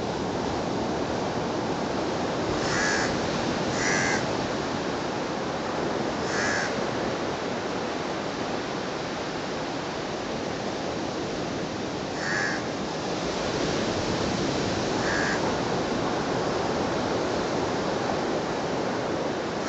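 Shallow brook running steadily over a sand bed, with a bird giving short calls five times: twice close together a few seconds in, once more soon after, then twice later on.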